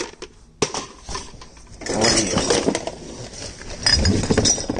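A cardboard box being handled and its contents rummaged: rustling and scraping with light clinks and knocks, louder about two seconds in and again near the end.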